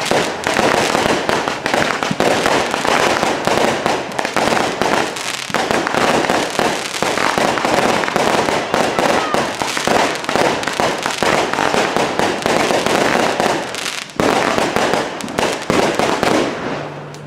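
Fireworks going off in a dense, continuous barrage of crackling and popping, with a brief lull about fourteen seconds in.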